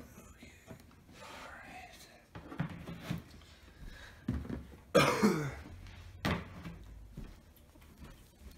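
Clear plastic storage tubs and their lids being handled and stacked: a series of hollow plastic knocks and clacks, the loudest about five seconds in.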